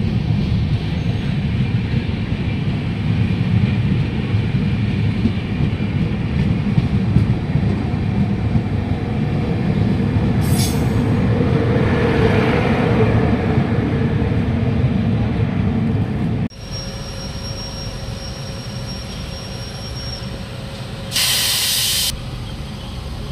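Coaches of the Bangalore Rajdhani Express running past on the adjacent track: a loud rumble of wheels with some squeal and a sharp clank about ten seconds in. After a sudden cut, a quieter steady hum with a faint high whine, broken near the end by a loud hiss lasting about a second.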